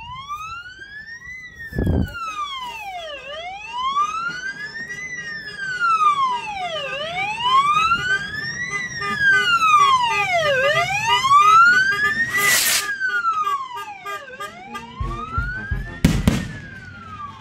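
A siren wailing, its pitch rising and falling slowly, about one cycle every four seconds. Three sharp bangs of festival firework rockets cut through it: a dull one about two seconds in, a hissing crack near twelve seconds and another bang near sixteen seconds.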